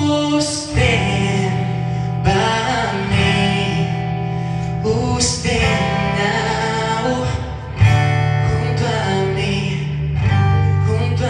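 A man singing into a microphone to acoustic guitar accompaniment, performed live.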